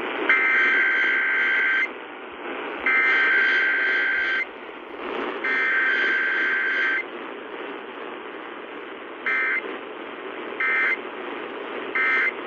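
Emergency Alert System SAME digital data bursts: three harsh, buzzing header bursts of about a second and a half each, then, from about nine seconds in, three short end-of-message bursts, marking a weekly EAS test. Steady radio hiss lies under and between them.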